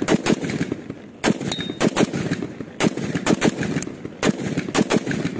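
AK-pattern rifle chambered in 44 bore firing about a dozen rapid shots in quick doubles and triples, each crack followed by a short echo.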